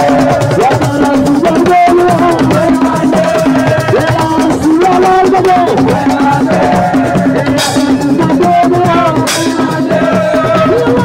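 Live assiko band music: dense drums and rattling shakers under a held, wavering melodic line. Two short hissing crashes come about seven and nine seconds in.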